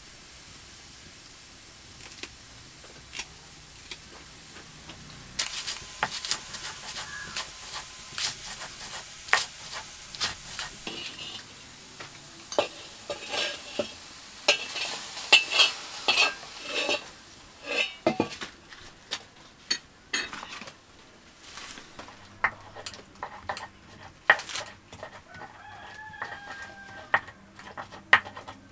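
From about five seconds in, a metal ladle clatters and scrapes in a metal wok while hot roasted tomatoes sizzle and are tipped out. Later a stone pestle crushes them on a stone grinding slab, with short knocks and stone-on-stone scraping.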